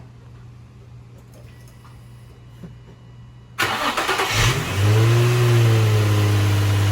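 2005 Infiniti G35 coupe's V6 being started, now breathing through a freshly fitted aftermarket cold air intake. The starter cranks about three and a half seconds in, the engine catches, flares up in revs and settles into a steady idle.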